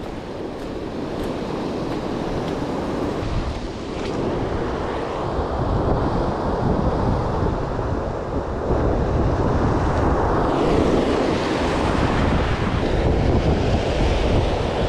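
Ocean surf breaking and washing over a rocky reef shelf, with wind buffeting the microphone; the wash grows louder about five seconds in.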